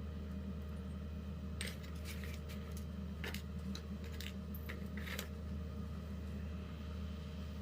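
A string of light metallic clicks and clinks over a few seconds, typical of small metal parts or tools being handled, over a steady low hum.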